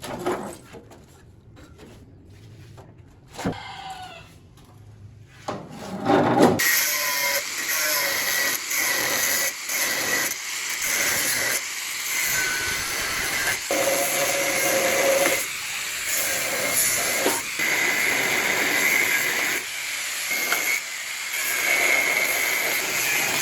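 A few light knocks and a brief squeak, then, about six seconds in, steady scraping and rubbing of hand tool work on a part, going on with short breaks between strokes.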